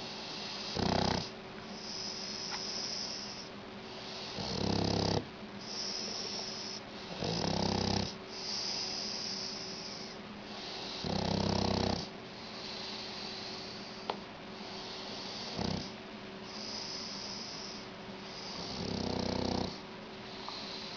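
Shar Pei dog snoring: a loud snore about every three to four seconds, six in all, with a softer hissing breath between them.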